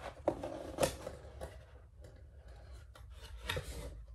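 Packaging of a craft kit being handled and opened on a table: scratchy rustling and scraping, with two sharp clicks in the first second and a louder rustle near the end.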